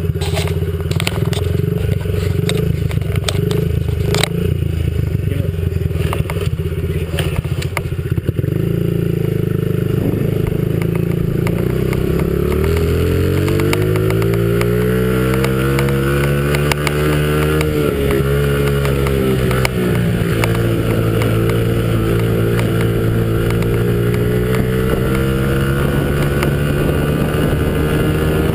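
Small dirt bike engine idling, with a few clicks and knocks, then revving up as the bike pulls away. The pitch climbs, dips briefly and settles into a steady run at speed.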